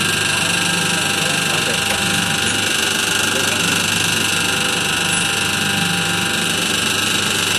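Tapioca flour dough mixer running steadily, its paddle shaft churning thick dough in a stainless steel trough. A constant machine hum with a steady high-pitched whine.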